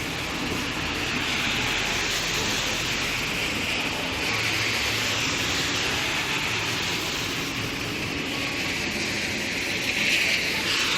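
Steady rain falling, a continuous even hiss that swells slightly near the end.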